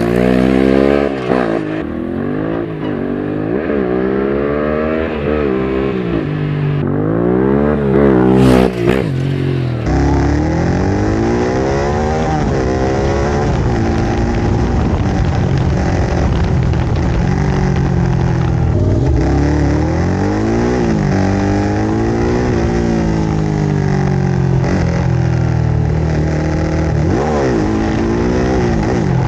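Yamaha Ténéré 700's 689 cc parallel-twin engine through a Mivv Storm exhaust with the dB killer removed, revving repeatedly, its pitch climbing and then dropping again many times. Loud throughout.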